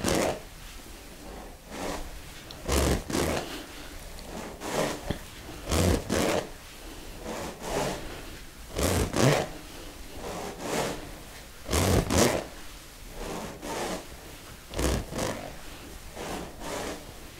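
Smovey swing rings being swung around the body: the steel balls inside each ring's spiral tube roll around with a rushing, rasping sound that swells with every swing, often in pairs about every three seconds.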